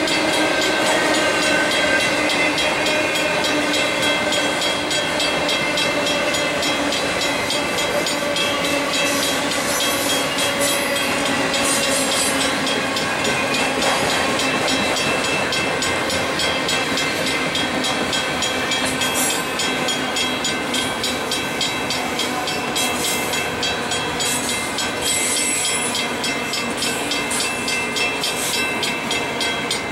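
A long freight train of autorack cars rolling past: the steady sound of steel wheels running on the rails, with clickety-clack over the rail joints and several steady held tones. It fades slightly towards the end.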